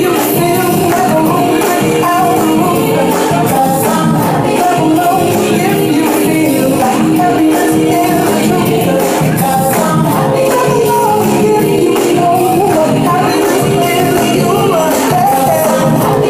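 Loud dance music with a steady beat, played over a DJ's sound system for dancing.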